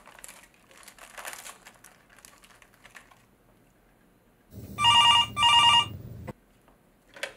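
Corded desk telephone ringing: two short rings in quick succession about five seconds in. Before that, a candy wrapper crinkles softly.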